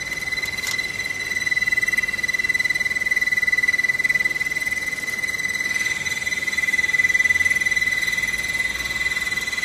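Handheld rolling seam welding machine giving off a steady, high-pitched electric buzz, a little louder from about a second and a half in.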